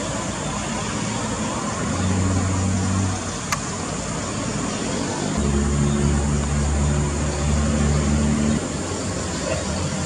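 A steady outdoor hiss with a low engine hum that comes in twice: briefly about two seconds in, and again from about halfway for some three seconds, stopping abruptly. A single sharp click near the middle.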